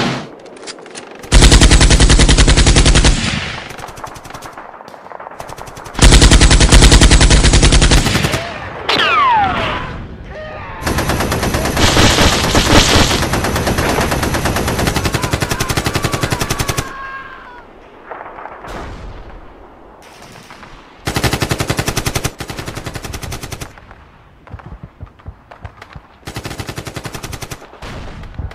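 Machine-gun fire in several long bursts of rapid shots, with falling whistles between some of the bursts.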